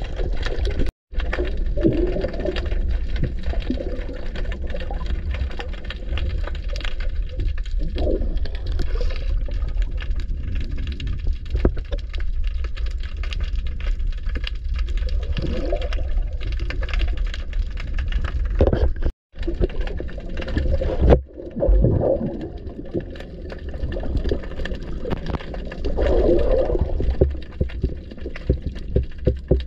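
Water movement heard underwater through a submerged camera: a steady low rumble with muffled sloshing and bubbling as a free diver swims, cutting out for an instant twice.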